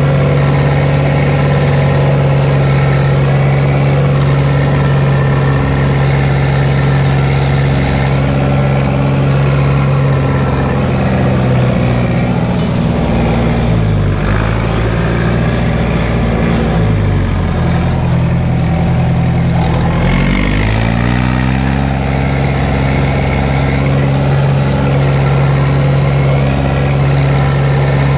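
Fiat 70-66 tractor's four-cylinder diesel engine running steadily, heard from inside the cab. About midway its speed drops and it runs slower for several seconds, then it revs back up to its working speed.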